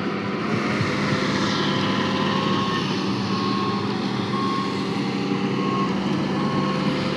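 Self-loading concrete mixer's diesel engine running steadily, with a reversing alarm beeping about once a second from about two seconds in.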